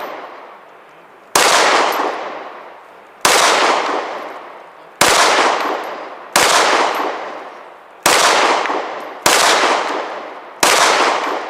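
Seven 9mm Glock 34 pistol shots, fired at an even, unhurried pace about one and a half seconds apart, each followed by a long echoing decay.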